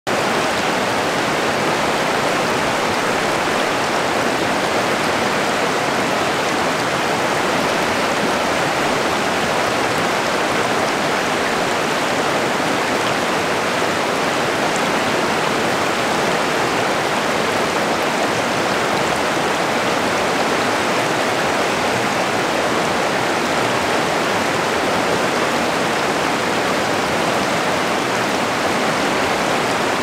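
River rapids: a steady rush of water tumbling over rocks, with no breaks or changes.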